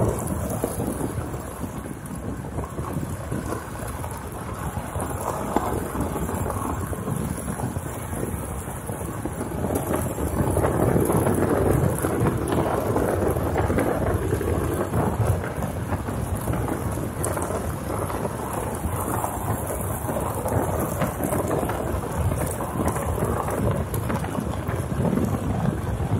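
A vehicle rolling slowly along a dirt road: a steady low rumble of tyres and running gear with a fine crackle of grit, somewhat louder from about ten seconds in.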